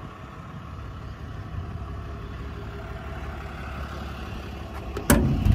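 Steady low rumble of the truck's 6.7 Cummins diesel idling. Near the end, two sharp clacks about half a second apart as a service-body compartment's paddle latch is released and the door pulled open.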